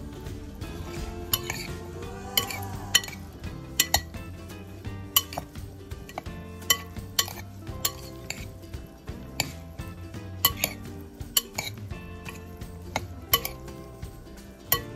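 Metal spoon clinking and scraping against a glass mixing bowl while stirring diced vegetables, with many sharp clinks at an irregular pace.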